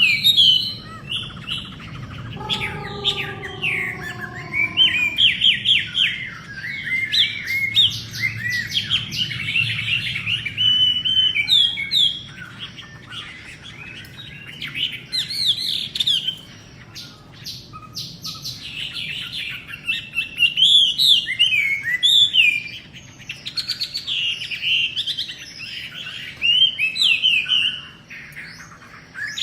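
Wambi songbird singing a fast, varied chattering song of quick rising and falling high notes in bursts with short pauses, the kind of song kept birds are readied with for a song contest. A brief steady lower tone sounds for a couple of seconds near the start.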